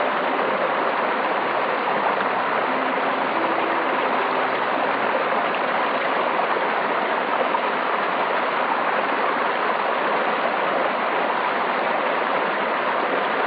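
Steady, unbroken rush of a flowing stream.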